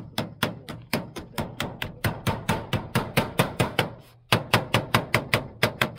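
Hammer tapping rapidly along the edge of a painted steel roofing sheet, about four sharp blows a second, with a short break about four seconds in, as the sheet's edge is folded down on a wall-mounted gutter.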